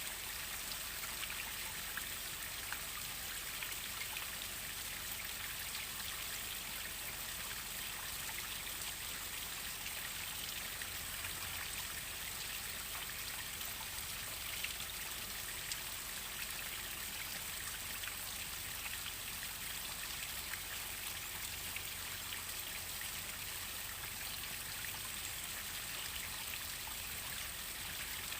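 Waterfall: a steady rush of falling water, with small splashes.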